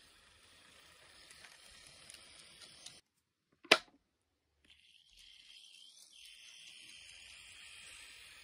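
Faint running noise of an N-gauge Kotoden 1200 series model train, a light hiss with small ticks from its metal wheels on the track, growing again as the train comes back round near the end. A single sharp click about three and a half seconds in, inside a brief dropout to silence, is the loudest sound.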